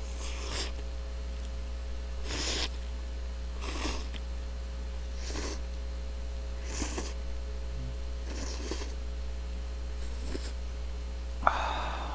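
A person slurping cup ramen noodles: about eight short, airy sucking slurps, roughly every second and a half, the last one near the end the loudest, over a steady electrical hum.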